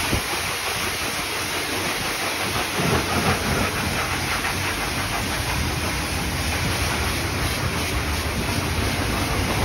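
Self-serve car wash high-pressure spray wand blasting water onto a car and the wet concrete floor: a steady hissing spray, with a low hum underneath that grows stronger in the second half.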